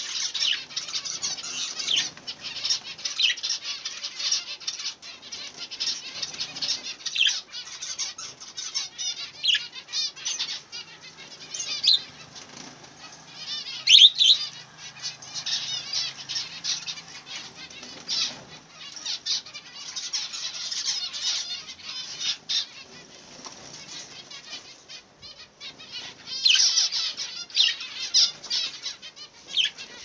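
A flock of budgerigars chattering and warbling nonstop, a dense stream of short high chirps. It is loudest about halfway through and again near the end.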